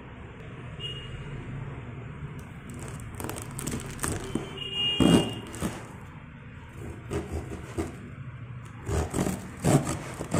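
Serrated kitchen knife sawing and scraping through the tape and plastic wrapping of a parcel, in irregular rasps and crinkles, loudest about halfway through. A steady low hum sits underneath.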